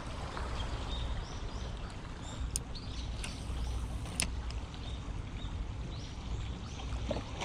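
Wind on the microphone: a steady low rumble with a hiss above it. Three sharp clicks come about two and a half, three and four seconds in.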